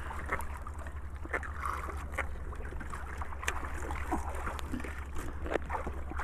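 Small fishing boat's engine running at a steady idle, a low even rumble. Scattered knocks and taps come from handling fish and the bamboo trap on the wooden boat.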